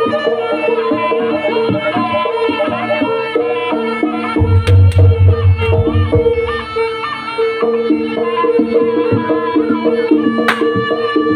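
Javanese jaranan gamelan music played live and loud: a reedy slompret-like wind melody over drums, with a run of deep drum beats about four seconds in. Sharp cracks cut through near the middle and again near the end, fitting the dancers' whips.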